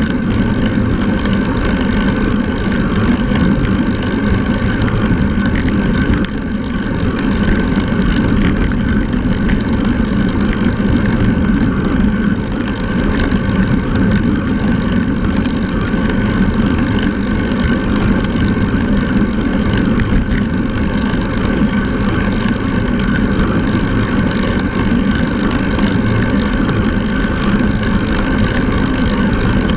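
Steady, loud wind rushing over the microphone of an action camera mounted on a road bike riding at speed, with a brief dip in level about six seconds in.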